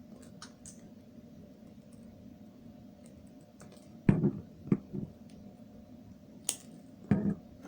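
Cutter snipping the ends off a bundle of CAT5 twisted-pair wires to square them off: sharp snipping clicks, a cluster about four seconds in, a single crisp snap a couple of seconds later and a few more near the end.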